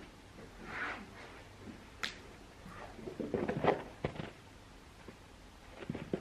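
Scattered soft taps, clicks and rustles of a ragdoll kitten pawing and biting at the camera, busiest from about three to four seconds in.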